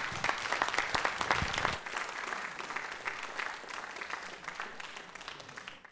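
Audience applauding. The clapping is strongest in the first two seconds, then thins out and fades away.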